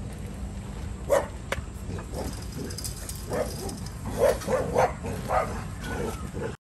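A dog barking, a series of short barks, several in quick succession in the second half, over a steady low background hum; the sound cuts off suddenly near the end.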